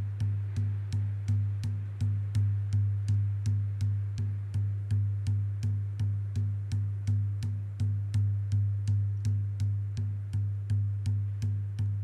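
A drum struck in a steady, even beat, a little over two strokes a second, each stroke a sharp hit with a deep ringing tone.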